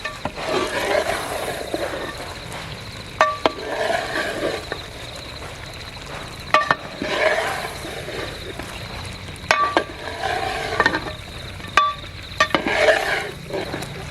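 A metal spoon stirs and scrapes chicken in a cooking pan. About every three seconds it strikes the pan with a sharp, ringing clink, sometimes twice in quick succession.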